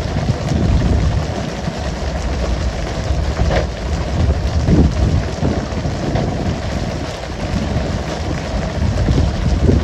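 Steady rushing hiss of water spraying from the boat's sides onto the sea, over a strong low rumble, with a few brief knocks on the deck about three and a half and five seconds in.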